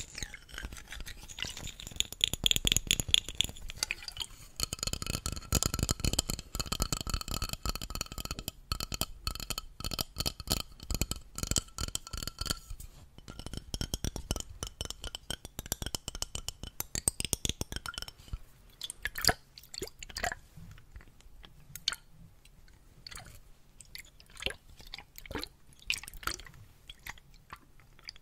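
Fast fingernail tapping and scratching on a metal spray bottle held right against the microphone, the metal ringing under the taps. After about eighteen seconds the taps thin out into separate, sparser clicks.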